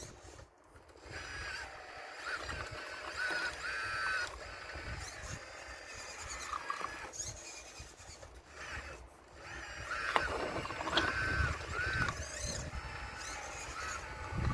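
Motor and hydraulic pump of an RC model Caterpillar excavator whining in short bursts, rising and falling in pitch as the controls are worked. There is a sharp knock about ten seconds in.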